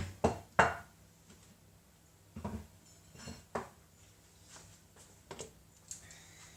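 Serving utensils knocking and scraping against a plate and dishes as food is dished up: a string of separate clinks and knocks, the loudest in the first second.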